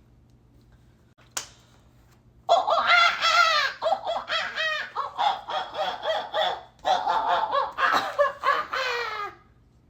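A person imitating a chicken: a long crowing-like call, then a string of short clucking calls lasting several seconds. A single sharp click comes about a second in.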